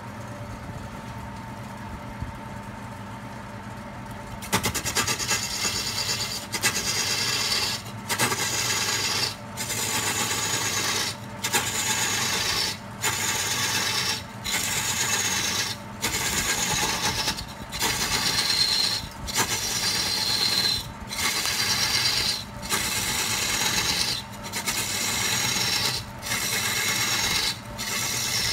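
Electric wood lathe running with a steady hum, then from about four seconds in a hand-held turning tool cuts into the spinning log, a rasping cut in repeated passes each about a second long with short breaks, a high whistle falling in pitch during each pass.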